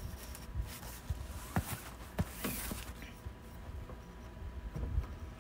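A kitchen knife scraping and slicing along the packing tape of a cardboard box, with scattered taps and knocks against the cardboard. A brief scraping rasp stands out about two and a half seconds in.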